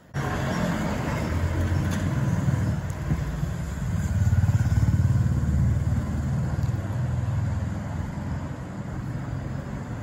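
A motor vehicle passing: a low engine rumble that starts abruptly, is loudest around the middle and slowly fades.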